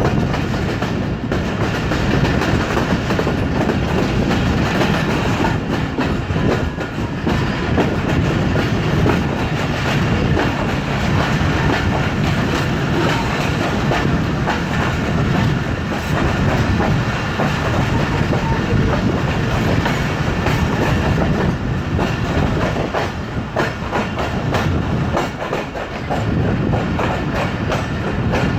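Passenger train rolling along the track, its coach wheels clicking steadily over the rail joints with a continuous rumble.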